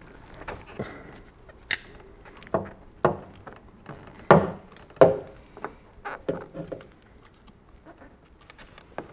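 Hand wire stripper clicking and snapping at irregular intervals as it strips insulation from thin car-door wires, with small rattles of the wires and tool between the clicks; the clicks thin out near the end.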